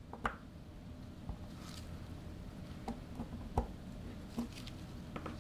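Scattered clicks and knocks as a 7/16 inch nut driver presses a retaining ring down over the spring-loaded seal in a macerator pump's impeller body, the loudest about three and a half seconds in.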